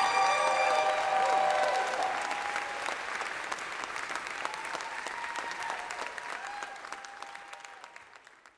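Audience applauding and cheering with whoops, the applause fading out toward the end.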